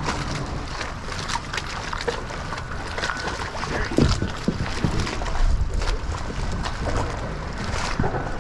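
Wind rumbling and buffeting on the microphone, with scattered light clicks and knocks from handling fishing gear and a louder thump about four seconds in.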